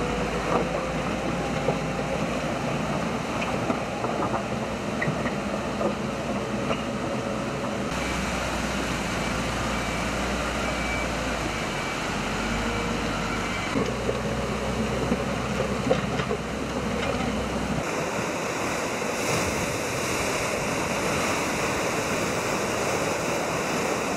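Backhoe loader's diesel engine running while it clears mud from a flooded road, with occasional knocks and scrapes. About three-quarters of the way through it gives way to the steady rush of a swollen, fast-flowing flood stream.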